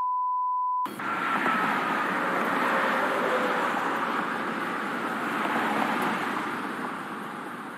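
A steady one-pitch censor bleep for about the first second, cutting off abruptly. After it comes steady street traffic and lorry engine noise with a faint slowly falling whine, easing off toward the end.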